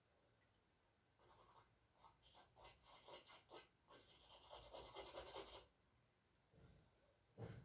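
Charcoal stick scratching faintly across canvas in a quick series of short shading strokes, starting about a second in and stopping after some four seconds. A soft low thump near the end.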